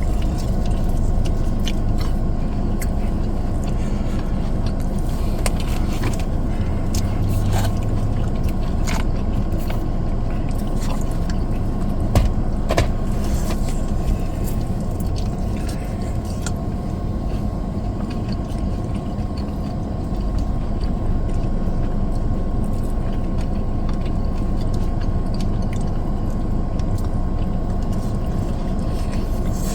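Steady low rumble and hum of a car, heard inside the cabin, with a few sharp clicks and crunches of food being eaten.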